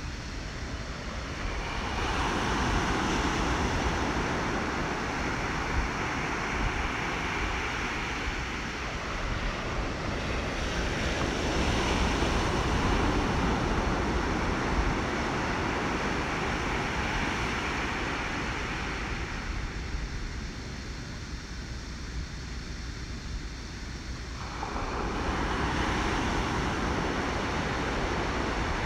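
Rushing noise like ocean surf and wind, swelling and easing in slow waves every several seconds, with a quieter stretch about twenty seconds in.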